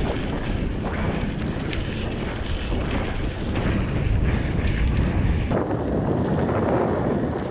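Wind buffeting the microphone while riding a mountain bike, with a rough low rumble and a few small clicks from the ride. The sound changes abruptly about five and a half seconds in, the deep rumble dropping away.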